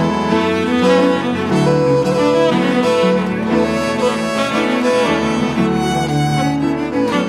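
Small acoustic ensemble playing together: tenor saxophone and bowed strings (fiddle and cello), with piano, in a steady run of held, overlapping melodic notes.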